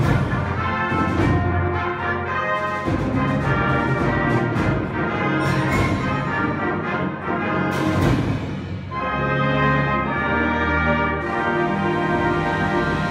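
Concert band playing a loud passage of full, sustained brass and woodwind chords, with a sharp percussion hit about eight seconds in.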